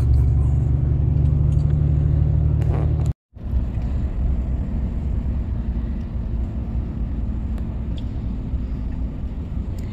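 Scania truck's engine and road noise heard from inside the cab while driving: a steady low rumble. The sound cuts out for a moment about three seconds in, then carries on a little quieter.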